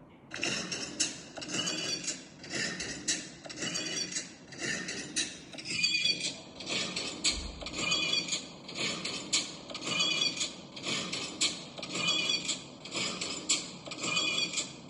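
Star Wars Imperial walker footstep sound effect, beginning with the AT-ST: a steady run of clanking mechanical steps, about two a second, each with a metallic servo whine.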